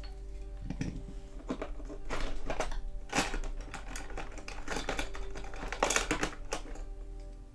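Irregular small clicks, taps and scrapes of tools and small metal parts being handled on a workbench during the disassembly of a die-cast toy car.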